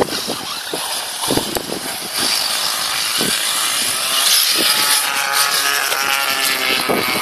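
Brushless electric motor of a Serpent 811 BE Cobra 1/8-scale RC buggy whining, its pitch rising and falling as the throttle is worked, with noise from the tyres on the grass. The whine grows louder and clearer about halfway through.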